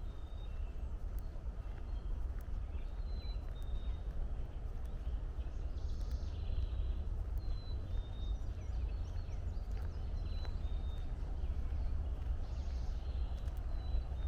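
Outdoor woodland ambience: a bird repeats short, high, slightly falling whistled notes every second or two over a steady low rumble.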